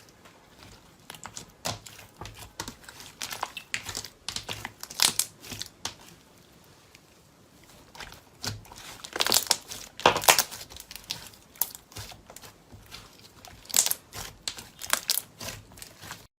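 Crunchy ASMR material crackling and crinkling as it is pressed and worked, in dense runs of small sharp clicks, with a quieter lull about halfway.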